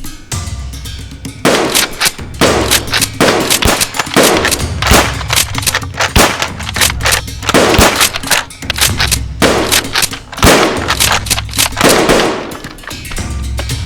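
Rapid bursts of gunfire, like machine-gun fire, starting about a second and a half in and stopping about a second before the end, over a steady low rumble.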